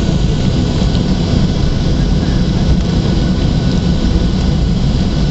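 Boeing 737-800 cabin noise heard from a window seat: the steady low rumble of its CFM56 jet engines and the airflow, with a faint steady whine above it.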